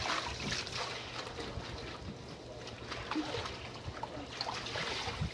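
Water splashing and dripping as gloved hands lift handfuls of washed baby salad greens out of a rinse tote of water.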